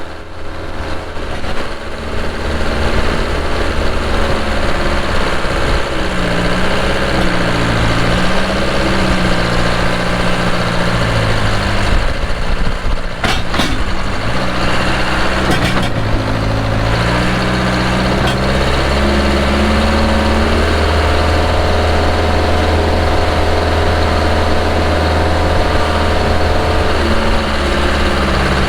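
Case 580 Super K backhoe's diesel engine running under load, its revs rising and falling as the loader works. A few sharp clunks come about halfway through, and a steady higher whine joins for several seconds later on.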